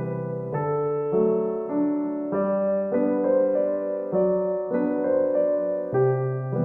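Background piano music: a gentle, slow piece of steady notes and chords changing about every half second.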